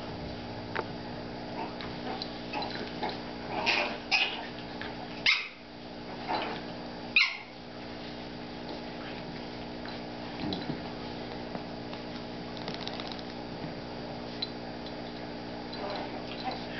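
Two dogs, a Chihuahua puppy and a blue heeler, play-fighting, with short yips and whimpering noises coming in scattered bursts, thickest and loudest between about four and seven seconds in.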